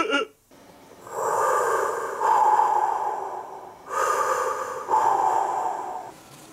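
MIG welding arc burning on sheet steel, in two runs of about three and two seconds with a short stop about four seconds in.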